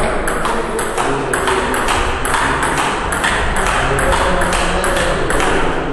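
Table tennis rally: the ping-pong ball clicking off the paddles and the table in a quick, even rhythm, about four hits a second.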